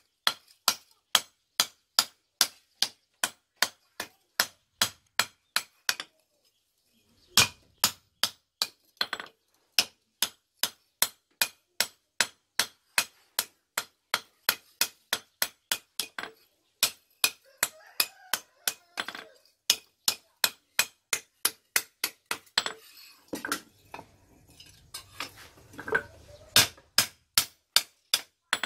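Hand hammer striking a red-hot steel axe head on an anvil while forging it back into shape: a steady run of sharp metal-on-metal blows, about three a second, with a pause of about a second near six seconds in.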